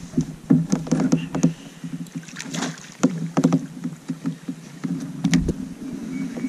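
Irregular knocks and clatter of a landing net and rod against a plastic fishing kayak, with short splashes from a black bream thrashing at the surface as it is netted.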